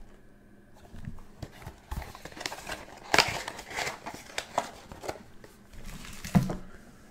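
Trading card packs and a cardboard box being handled: rustling, crinkling wrappers and light knocks as the packs are taken out and stacked, with the sharpest knock a little past six seconds in.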